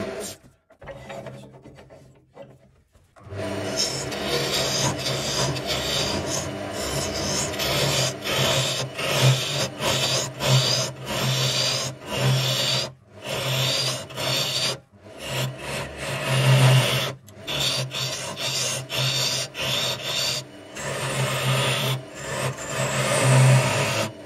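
Wood lathe with a hand-held steel turning tool hollowing the inside of a spinning wooden cylinder: a rasping cutting sound in repeated passes, broken by short pauses as the tool comes off the wood, over the motor's steady low hum. The cutting starts after about three seconds of near quiet.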